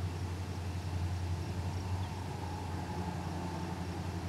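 An engine idling with a steady low hum.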